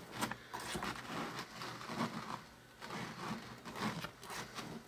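A plastic spoon scraping and poking inside a plastic toy volcano full of foamy vinegar-and-baking-soda mixture: faint, irregular scrapes and taps.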